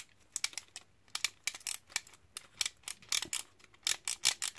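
Ratchet solder-feed mechanism of a cheap solder-feed soldering gun clicking as it is worked, in quick groups of sharp clicks a couple of times a second. The solder wire is not being pulled in.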